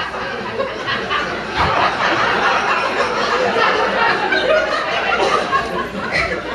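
Audience laughing after a punchline, a steady mass of laughter from many people.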